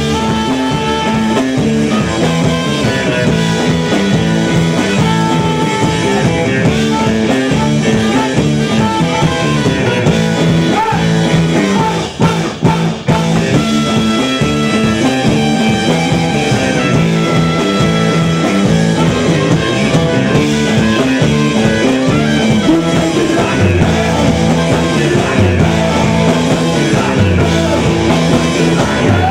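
A rock band playing, with electric guitar and bass over drums; the sound drops out briefly about twelve seconds in.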